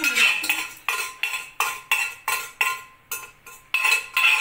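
A steel ladle knocking and scraping against a metal kadai as dal and jaggery syrup are stirred, in a steady rhythm of about three ringing clinks a second.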